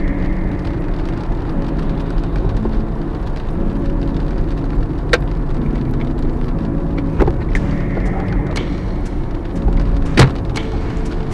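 Car driving: a steady low road and engine rumble, with a few sharp clicks or knocks, the loudest near the end.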